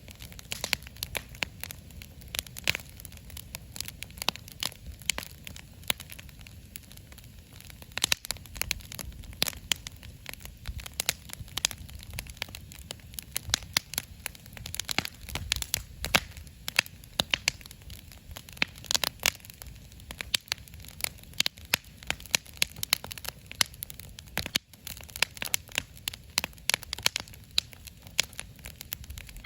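Wood fire burning in a fire pit, crackling with frequent sharp pops and snaps over a low, steady rumble.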